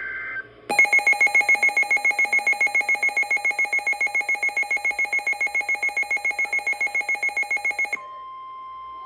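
Weather radio alert: the last moment of a SAME digital header burst, then the receiver's electronic alarm beeping rapidly, about seven pulses a second, for about seven seconds as a severe thunderstorm warning comes in. Near the end the alarm cuts off and the steady NOAA Weather Radio 1050 Hz warning alarm tone begins.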